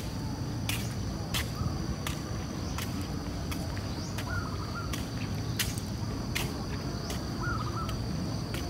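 Insects droning in two steady high tones over a low rumbling outdoor background, with the clicks of footsteps on a concrete walkway and two short bird chirps, about four seconds in and again near the end.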